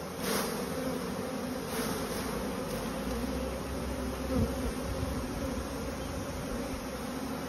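Honeybees from an open hive buzzing as a steady hum. A couple of short rustles come early, and a soft knock comes a little over four seconds in.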